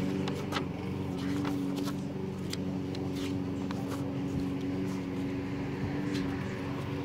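Pages of a ring binder being turned by hand, the paper crackling in short bursts, over a steady low mechanical hum.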